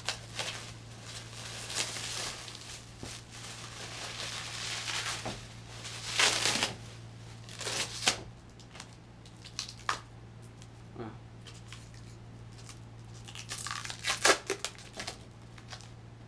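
Plastic wrap crinkling and tearing as it is pulled off by hand, in stretches with louder rips about six seconds in and again near the end. A steady low hum runs underneath.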